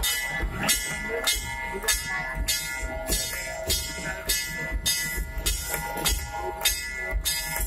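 Hindu temple aarti music: clanging metal percussion struck in a steady beat about three times a second, over the sustained ringing of bells.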